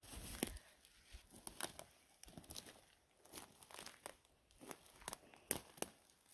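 Faint crunching and crackling of dry forest-floor litter, in irregular sharp snaps.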